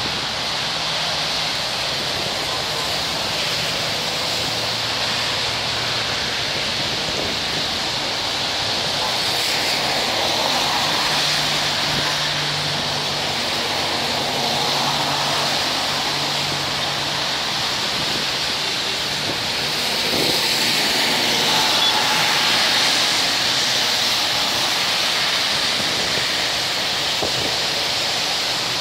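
Steady rushing noise of road traffic and wind, with a faint low engine hum underneath; it swells slightly about twenty seconds in.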